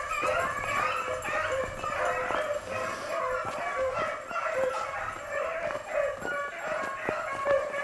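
A pack of beagles baying on a rabbit's track, many overlapping voices calling without a break.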